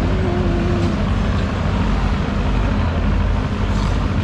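Steady low mechanical rumble of running machinery, holding an even level throughout.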